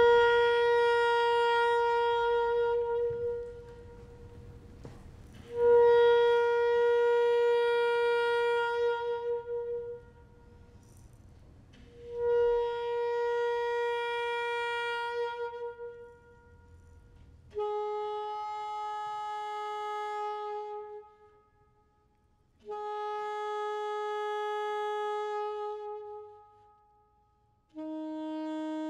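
Music from a single wind instrument playing slow, long held notes, each about three seconds with short breaks between them. Three notes sound on the same pitch, then two a step lower, then a lower one near the end.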